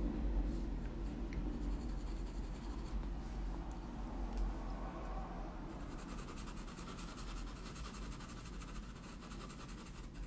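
Colored pencil rubbing on toned drawing paper in light, quick back-and-forth shading strokes, softening edges, over a low steady room hum.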